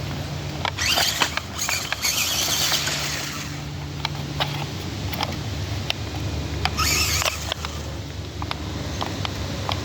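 Cheap toy RC crawler driving over the ground: three short bursts of its small electric motor and tyres scrabbling, about a second in, from about a second and a half to three seconds, and again about seven seconds in, with scattered clicks and knocks from the wheels.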